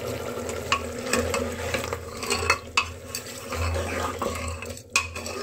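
A steel ladle stirring mutton and chopped tomatoes in a pressure cooker over sizzling oil, with several sharp clinks of the ladle against the pot.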